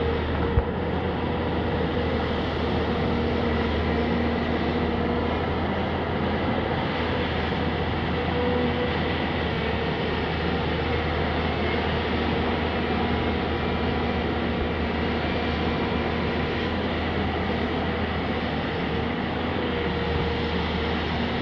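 Tata Hitachi excavator's diesel engine running steadily under work, a deep even drone with faint whining tones that come and go. A single sharp click about half a second in.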